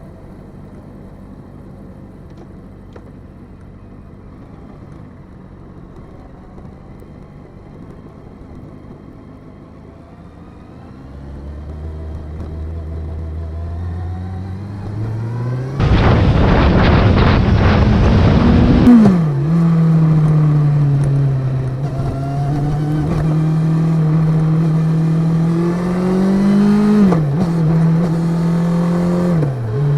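Motorbike engine running low and steady, then pulling away and accelerating through the gears, its pitch climbing and dropping at each shift. A loud rushing noise covers it for about three seconds just past the middle.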